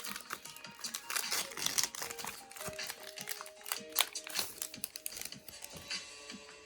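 Foil booster pack wrapper crinkling and trading cards clicking and rustling as they are handled, over quiet background music with a simple melody.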